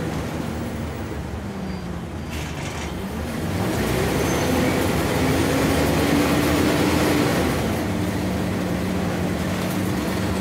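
Scania N94UB single-deck bus's nine-litre five-cylinder diesel engine and road noise, heard inside the passenger saloon while driving. The engine note rises and gets louder about four seconds in, then falls back a little before eight seconds in.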